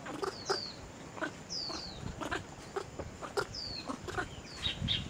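Repeated short animal calls: high chirps that each slide down in pitch, about one or two a second, mixed with short, lower clucking notes.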